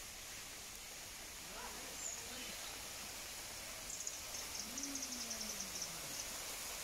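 Steady hiss of a small waterfall splashing down a rock face into a pond, with faint high bird twittering about four seconds in.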